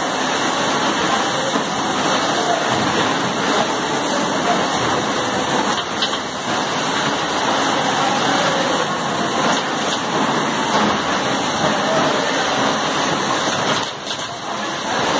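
Oil streaming from the filling machine's nozzles into plastic jerry cans: a steady rushing, splashing noise, dipping briefly near the end.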